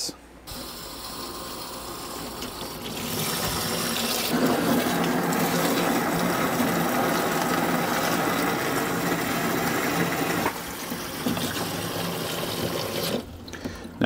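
Water rushing out of a hose into a drain pan as clean water is flushed through a tankless water heater to rinse out the descaling solution. The rush grows louder about four seconds in and drops back in steps near the end.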